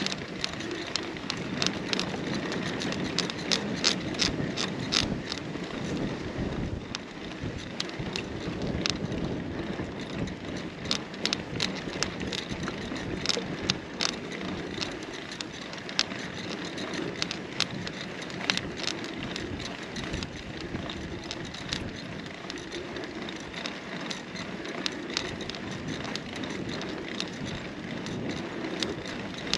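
Carrera Hellcat mountain bike being ridden over uneven ground: a steady rumble of tyres with frequent sharp rattles and clicks from the bike.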